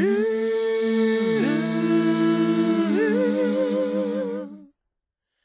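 Layered a cappella humming: several held vocal notes sounding together in harmony, changing chord about one and a half seconds in and again about three seconds in, with a wavering upper note in the last part, then stopping suddenly near the end.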